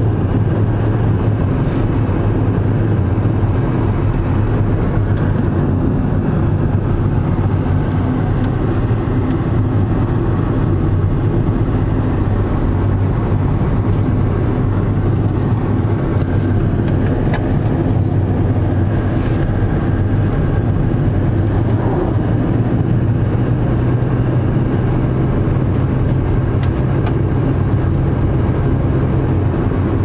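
A car driving at highway speed, heard from inside the cabin: a steady low hum of engine and tyres on asphalt.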